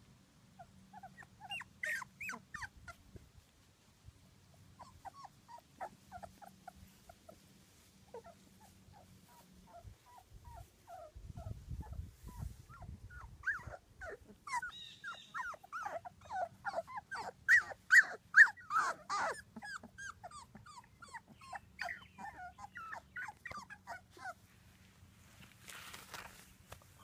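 Two-week-old Labrador puppies whimpering and squeaking in many short, high calls, thickest and loudest in the middle. A low rumble comes in about eleven seconds in.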